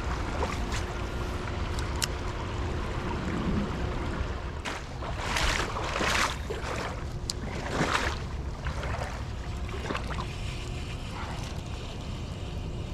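Steady rushing of creek water with wind on the microphone, and a few louder rushing surges about five, six and eight seconds in.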